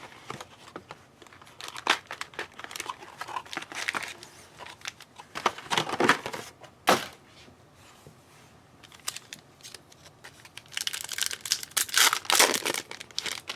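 Trading card pack wrappers being torn open and crinkled by hand, in several clusters of short, sharp rustling tears.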